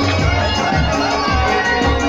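Loud music with a steady, heavy drum beat and a sustained melody line, played for a dancing crowd.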